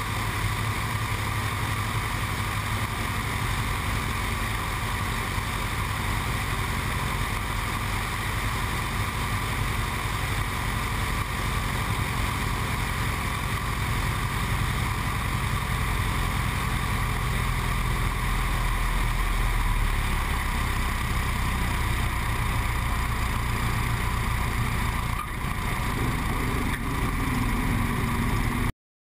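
Light aircraft's propeller engine running steadily with wind rushing over the microphone outside the cabin, through final approach and the landing rollout. There is a brief dip in the noise near the end.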